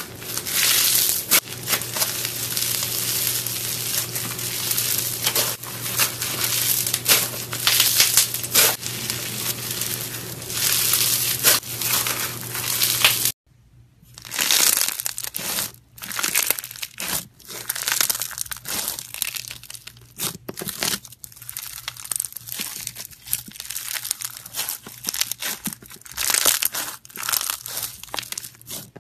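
Slime being squeezed and stretched by hand, a dense crinkling crackle from a fluffy slime. About 13 seconds in the sound cuts out briefly, then a bead-filled slime pressed under the fingertips gives sparser, sharper crunchy crackles and pops.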